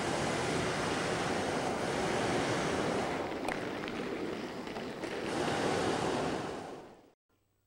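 Steady rushing noise of wind on a camcorder microphone, with no engine or voices in it. It cuts off abruptly about seven seconds in, leaving near silence where the videotape drops out.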